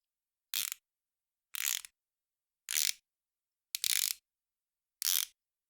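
Ratchet screwdriver twisting: five short bursts of ratcheting about a second apart, the fourth a little longer, with silence between.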